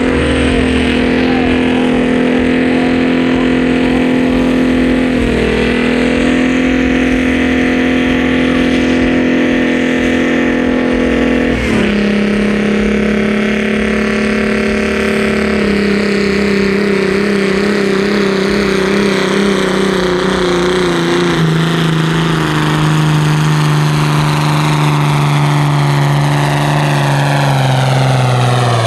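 Modified pulling tractor's engine running flat out under load as it drags a weight-transfer sled, loud and steady at first. From about halfway on, its revs sag gradually and the pitch falls, the sign of the engine being bogged down as the sled's load builds.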